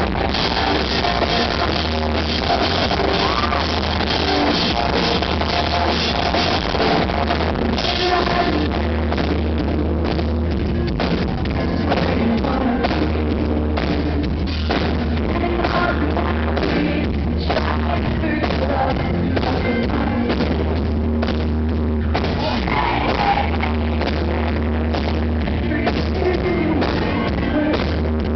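A rock band playing loud live, with drums, a heavy booming bass and a female lead singer, heard from the audience.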